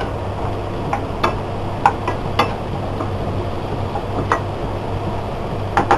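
Spatula stirring frying onion-tomato masala in a non-stick kadhai, tapping and scraping against the pan in irregular sharp clicks over a steady sizzle.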